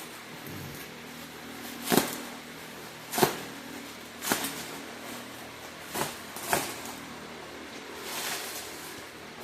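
Five sharp knocks at uneven intervals, typical of handling cardboard packaging and steel parts, followed near the end by a softer rustling scrape.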